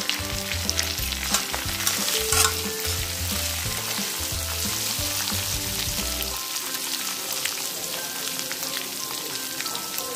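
Spices, ginger and chopped green chillies sizzling in hot oil in an iron kadhai, stirred and scraped with a plastic slotted spatula. A low rumble underneath stops about six and a half seconds in.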